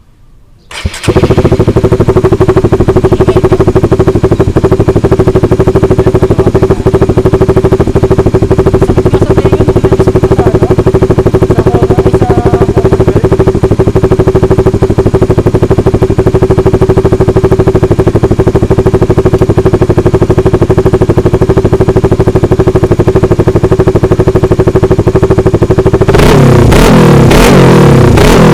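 Honda Supra GTR150's single-cylinder engine starting about a second in, through a Vmax big-tip racing muffler with only one silencer (the tip silencer removed), then idling loudly and steadily. Near the end the throttle is blipped in a few quick revs.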